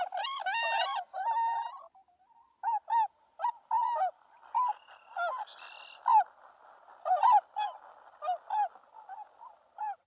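Swan honking calls: drawn-out nasal notes in the first two seconds, then a string of short honks about twice a second, over a faint hiss from about four seconds in.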